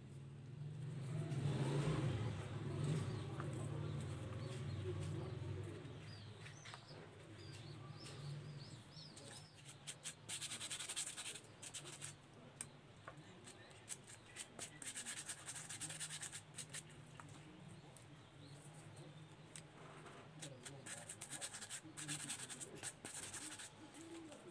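Short scratching and rubbing strokes of a hand tool working a foam sandal sole, in quick runs, over a low steady hum. A few faint bird chirps come in the first part.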